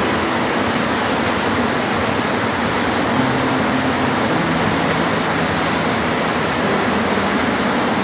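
Steady, dense rain hiss.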